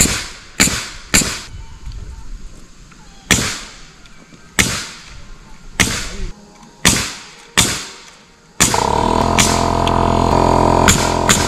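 About eight sharp, irregularly spaced cracks of nails being driven into lumber girts on the barn poles. Background music with a steady beat comes in about three-quarters of the way through.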